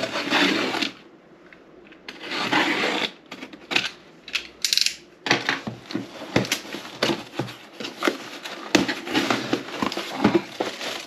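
Cardboard product box being opened by hand: a few separate scrapes and rustles of the cardboard, then from about five seconds in a dense run of clicks, taps and scraping as the flaps and packaging are pulled apart.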